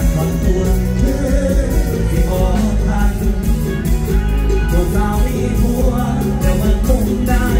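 Live Thai luk thung band playing over the PA with a male singer singing, drums keeping a steady beat.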